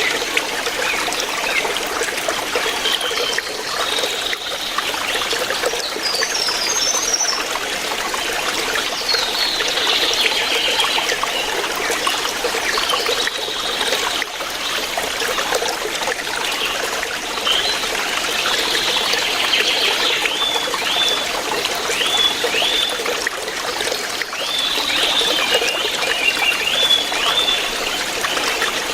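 A shallow jungle river flowing steadily over rocks, an even rush of water. Short high chirps sound over it now and then, repeating quickly near the end.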